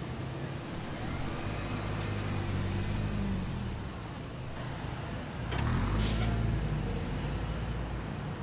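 Diesel fire engine running as it drives slowly, the engine note swelling twice, with a short sharp sound about five and a half seconds in.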